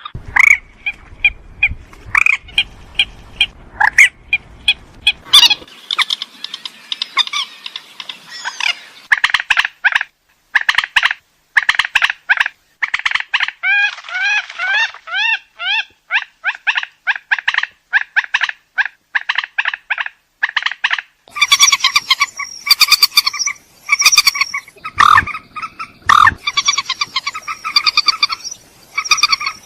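Rail (burung mandar) calls played as a bird-luring recording: long runs of rapid, short, harsh repeated notes, turning louder and brighter after about twenty seconds.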